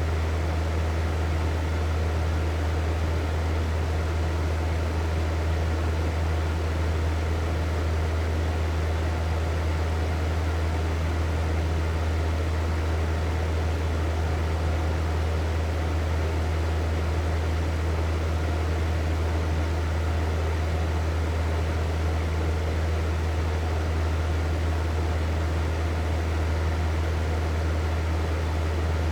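Hair dryer running steadily: an even rush of blown air over a low motor hum, with no change in speed.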